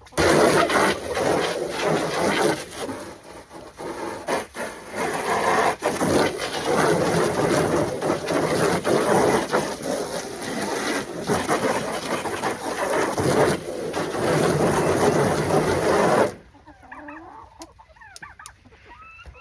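Garden hose spraying water into a plastic turtle sandbox to fill it for hens. The rough, rushing spray starts suddenly and cuts off about 16 seconds in, and hens cluck faintly afterwards.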